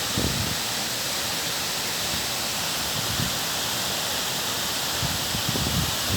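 Waterfall: falling water pouring steadily in a constant rushing hiss.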